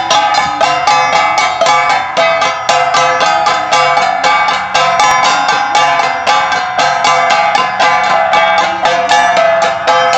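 An ensemble of gangsa, flat bronze Cordillera gongs, beaten in a fast steady pattong rhythm of about four to five strokes a second, their ringing tones overlapping.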